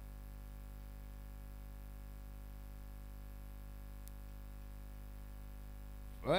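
Steady low electrical hum and faint hiss from the stage sound system. Just before the end, a man's voice starts a chanted Quran recitation on a rising note.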